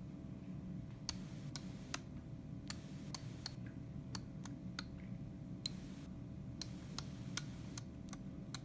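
Small switches on an electronics project board being flipped one after another: many faint, sharp clicks at an uneven pace as a number is keyed in on the switches.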